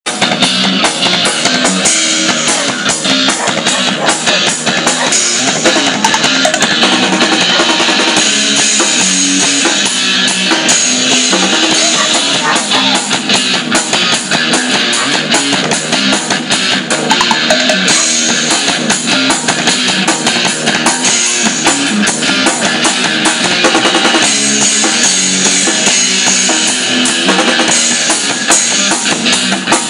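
Rock music with drum kit and guitar playing loudly and steadily, with a regular beat and little deep bass.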